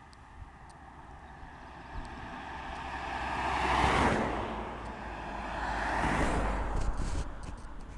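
Volkswagen Golf Mk4 R32 with a straight-through Supersprint exhaust (catalytic converter and mid-section removed, valve flap disabled) driving past: its VR6 exhaust note builds to a loud peak as it goes by about four seconds in, swells again around six seconds in, then fades away.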